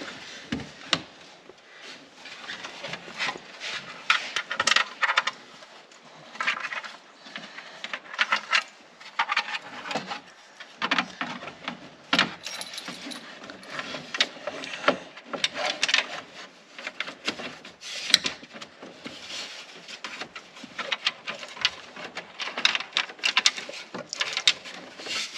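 Hard plastic dash trim being handled and test-fitted around a stereo head unit: irregular clicks, taps and scrapes of plastic against plastic.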